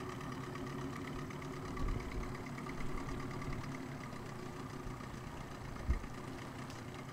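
Small outboard motor idling steadily, with a few brief low thumps about two, three and six seconds in.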